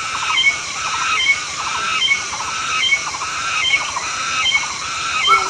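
Short animal calls repeating about twice a second over a steady high hiss.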